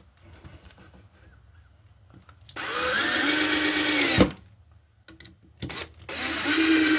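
A power drill driving screws into pine boards through pilot holes: two runs of about a second and a half each. The first stops with a sharp knock as the screw seats, and the second starts about six seconds in.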